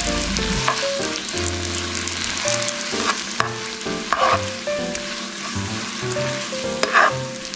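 Spaghetti sizzling in butter and pasta water in a frying pan while it is tossed with metal tongs, with a few sharp clicks of the tongs against the pan. Background music plays underneath.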